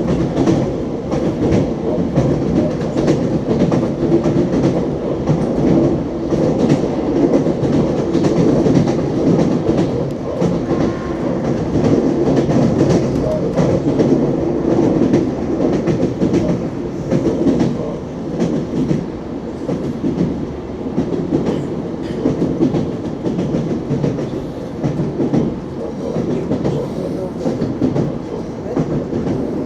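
Siemens Desiro Rus ES2G 'Lastochka' electric train running, with continuous rumble and the clickety-clack of its wheels over the rail joints, a little quieter in the second half.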